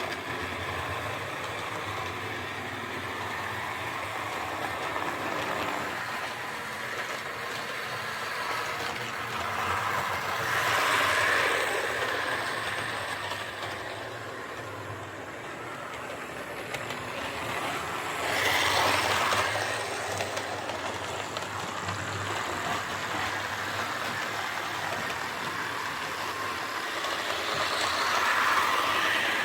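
HO scale Lima Class 33 model diesel locomotive, with its freshly serviced pancake motor, running steadily along the track. The motor and wheel noise swells louder three times, about every eight seconds, as the locomotive comes close.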